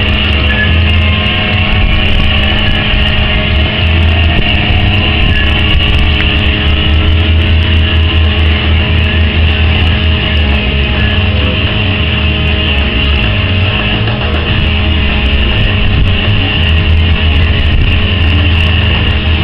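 Steady, loud rush of air and uneven low rumble on the microphone of a rider on the spinning Insanity thrill ride, with a steady hum underneath.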